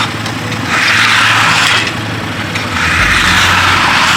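Lucas portable sawmill with its slabber attachment, running and cutting. Under a steady engine hum, a harsh cutting hiss swells in long surges about every two seconds.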